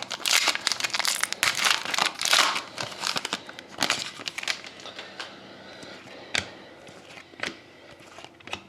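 Trading-card packaging crinkling and tearing as hockey cards are unwrapped by hand. The crinkling is dense for the first four seconds or so, then thins to a few scattered clicks and taps.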